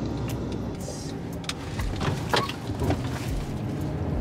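Steady low rumble of a car's engine and road noise heard from inside the moving car, with a few short clicks and knocks.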